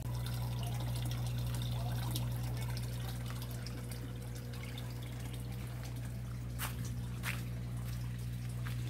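Water splashing and dripping into a tarpaulin fish pond, the return flow of a recirculating aquaculture filter system, with many small scattered drips over a steady low hum.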